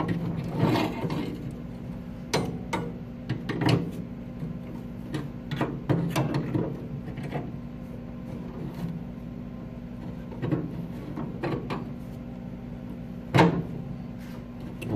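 Pliers bending and twisting the cut tabs of a metal exhaust pipe fitted into the bottom of a steel barbecue: irregular metal clicks, scrapes and knocks, with a sharper knock about 13 seconds in, over a steady low hum.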